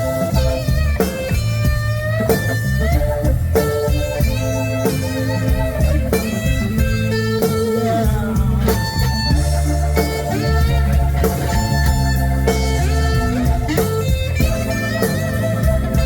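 Live blues band playing an instrumental break: a lead solo of bent, wavering notes over a steady bass line and drums.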